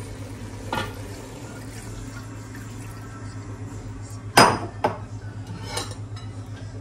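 Cookware clinking and knocking against a cooking pot: a few separate knocks, the loudest about four and a half seconds in, over a steady low hum.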